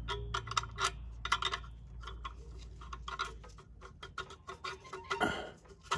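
Light, irregular clicks and taps of a carburetor gasket and spacer being handled and slid by hand onto the generator engine's carburetor mounting studs.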